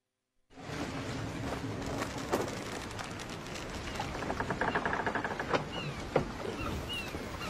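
Sound effects of a sailing ship at sea: a steady wash of water noise with scattered clicks and creaks, a quick run of ticking about four seconds in, and a few faint, short falling cries near the end.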